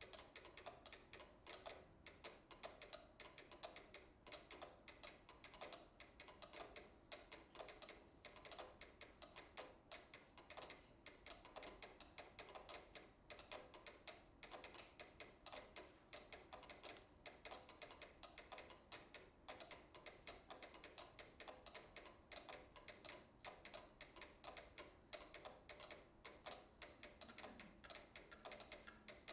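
Several pyramid-shaped mechanical metronomes ticking at different tempos, their quiet clicks overlapping in a dense, uneven, shifting pattern.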